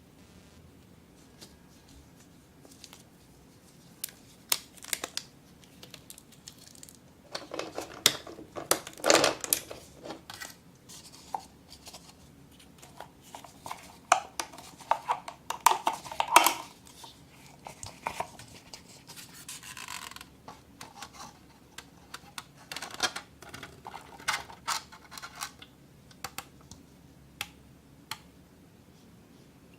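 Hands working craft materials: irregular scratching and rustling with sharp clicks, busiest in the middle and tailing off near the end.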